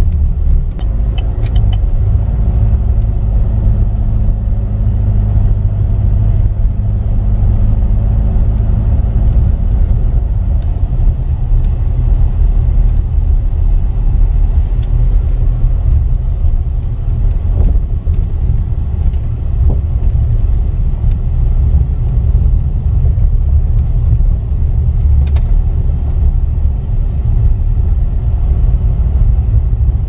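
Car driving along a rough unpaved road, heard from inside the cabin: a steady low rumble of engine and tyres, with a few brief knocks from bumps.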